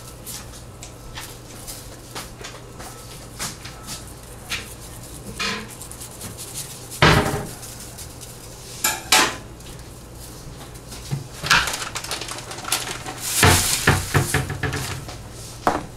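Scattered clicks, knocks and rattles of a spice container and baking pan as seasoning is shaken over racks of pork ribs. There is a louder knock about halfway through and a dense run of rattling near the end.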